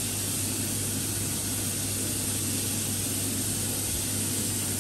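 Steak searing in a hot pan: a steady sizzling hiss, over a steady low hum.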